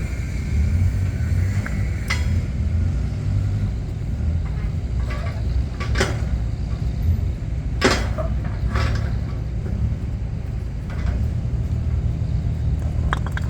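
A machine's engine running with a steady low rumble, with several sharp knocks and clanks of blocks and metal parts being handled; the loudest knocks come about 6 and 8 seconds in.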